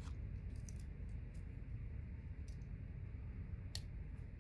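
Faint, scattered clicks of a Victorinox Swiss Champ XLT pocket knife's tools being worked on their back springs, about half a dozen sharp ticks over a low steady hum.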